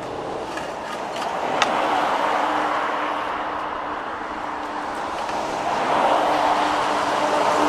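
Road traffic: motor vehicles passing, swelling about two seconds in and again near the end, with a low engine hum. A single sharp click sounds about one and a half seconds in.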